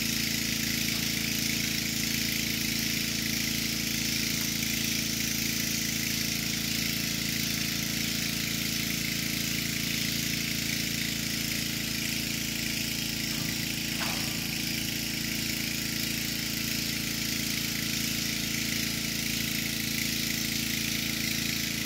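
Steady engine-like motor hum, an unchanging drone with a high hiss over it.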